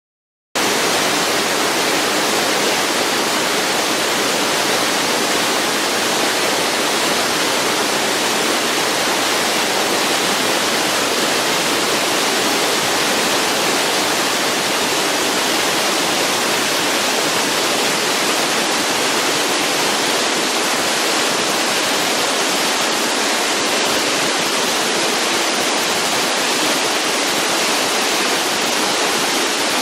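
Kajikazawa Fudō Falls: the steady rush of a waterfall, a dense, even hiss of falling water that stays constant throughout.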